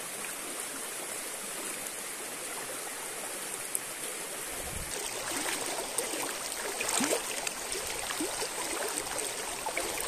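Shallow river water running steadily. About halfway through, closer gurgling and splashing with small clicks comes in.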